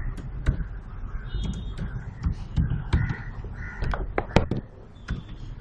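Computer keyboard keys clicking as a word is typed, the loudest click about four seconds in, while birds give several short harsh cawing calls in the background.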